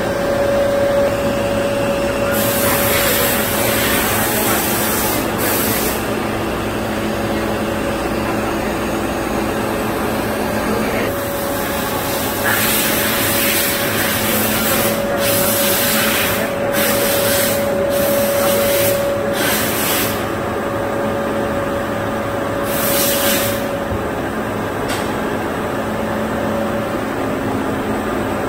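Doosan DBC250II horizontal boring machine running with a steady mid-pitched hum. Bursts of hissing cut in over it: one long stretch a few seconds in, a quick series of short bursts around the middle, and one more near the end.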